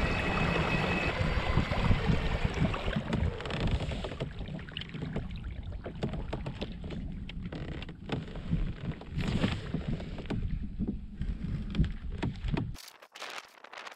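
Fishing kayak under way: water rushing along the hull and wind buffeting the microphone, a dense low rumble that cuts off suddenly near the end.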